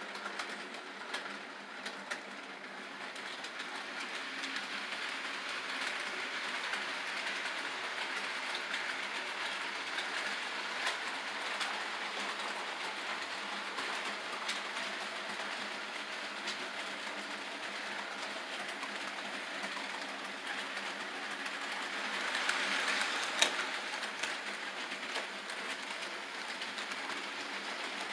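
HO scale model train running on the layout out of sight: a steady motor hum with scattered clicks, growing louder about 22 seconds in and easing off again after a sharp click.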